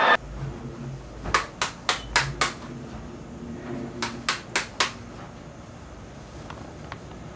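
Sharp taps in two quick runs, five and then four, each about a quarter-second apart, while a small handheld device, apparently a cell phone, is being handled.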